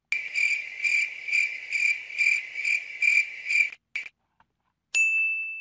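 A shrill, steady insect call, pulsing about twice a second, that stops abruptly after three and a half seconds. Near the end a second, slightly higher insect tone starts suddenly.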